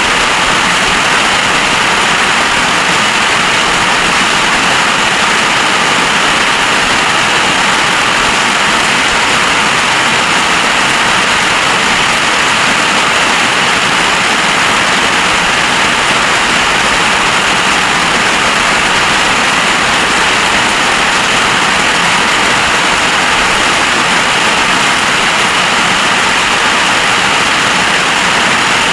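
Heavy storm rain falling, a loud, steady rushing hiss with no letup.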